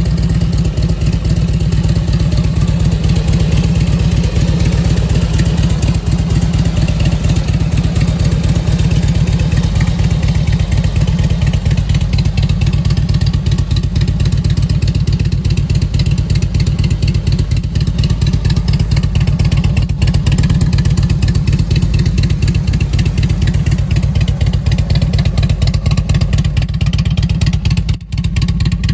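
Harley-Davidson Twin Cam 88 V-twin of a 2003 Road King running at a steady idle through DNA fishtail exhaust pipes, a low, even beat of exhaust pulses.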